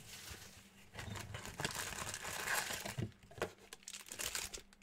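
Crinkling and rustling of a 2019-20 Panini Contenders Basketball cardboard box being opened and its wrapped card packs handled, with a couple of short knocks about three seconds in.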